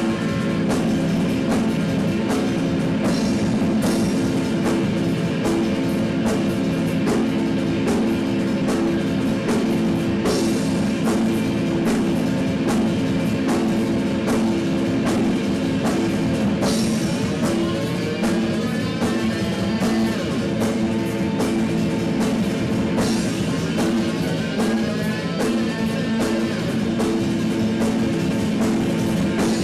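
Live band with electric guitars and a drum kit playing a steady beat, with cymbal crashes about every six or seven seconds.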